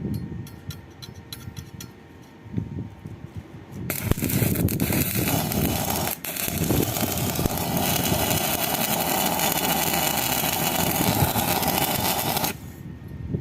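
Arc welding on a mild-steel pipe joint: a loud, steady crackling sizzle that starts about four seconds in, breaks off briefly, resumes and stops suddenly near the end. Light metallic clinks come before it.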